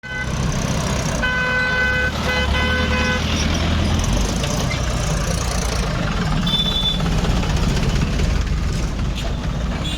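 A horn blown twice in quick succession, each blast about a second long, over a steady low rumble of vehicle engines. A short high-pitched beep sounds a few seconds later.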